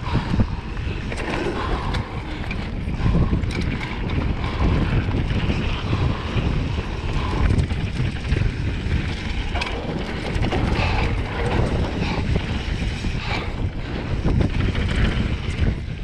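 Mountain bike riding fast down a dirt trail: wind buffeting the microphone over the rolling of knobby tyres on dirt, with scattered knocks and rattles from the bike over bumps.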